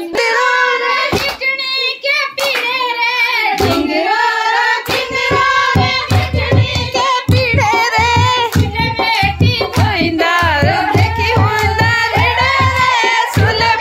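Himachali pahari folk song playing loudly: a singer's wavering melody over sharp percussive strokes, with a steady low drum beat joining about five seconds in, and hand clapping.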